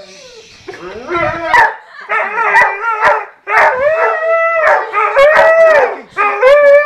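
Husky howling, screaming her head off in a string of about five long, wavering calls, each about a second long, with short breaks between.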